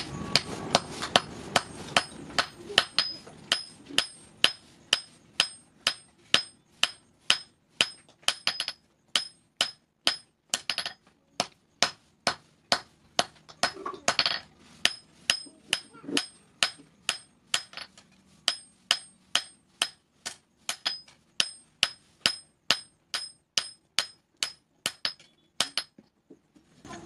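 Hand hammer forging a red-hot steel knife blade on a steel anvil block: steady blows about two a second, each with a bright metallic ring. The hammering stops near the end.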